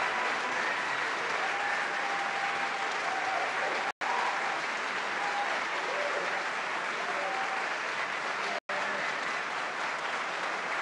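Concert audience applauding steadily, with a few voices calling out over the clapping. The sound drops out for an instant twice.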